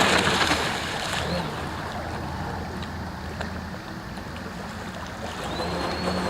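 Joysway US-1 V3 RC catamaran's brushless motor and hull running on the water: a wash of water and spray noise, loudest at first and then fading, with a high motor whine briefly about a second in and again, rising, near the end.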